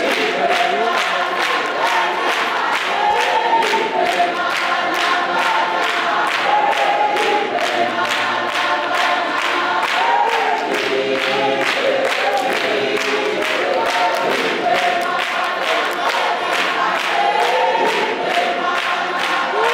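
Congregation singing together as a choir, with steady hand claps keeping the beat.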